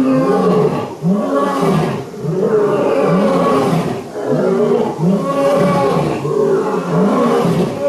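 Lions roaring: a loud, continuous run of deep calls, each rising and falling in pitch, with brief dips between groups of calls.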